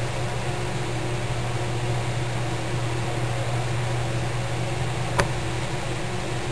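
Steady mechanical hum with hiss, and one sharp click about five seconds in.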